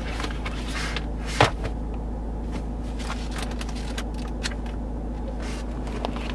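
Paper pages of a car's owner's manual being flicked through by hand, a run of quick light rustles and clicks, after one sharper knock as the manual is handled. Under it runs a steady low hum inside the car.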